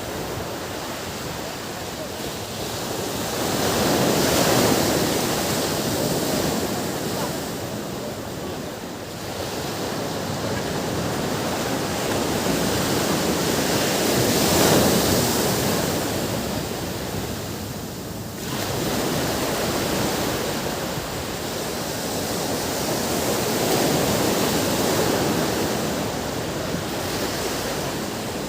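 Ocean surf washing onto a beach: a steady rush of water that swells and falls away in slow waves, cresting roughly every ten seconds.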